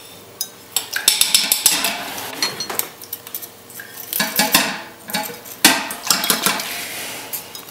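Irregular light metallic clinks and short scrapes of metal tools and pieces being handled on a hard workbench.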